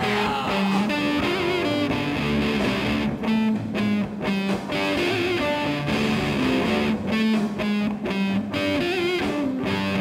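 Rock band music with distorted electric guitar strumming. The chords are cut short in a choppy, stop-start rhythm in two stretches, a third and three quarters of the way in.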